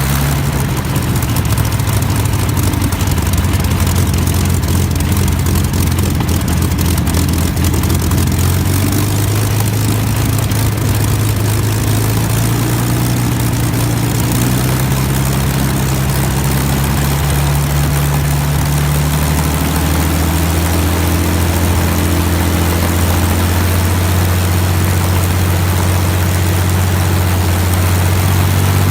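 Old propeller aircraft piston engine running at a steady idle just after a cold start, its pitch creeping up slightly about two-thirds of the way through.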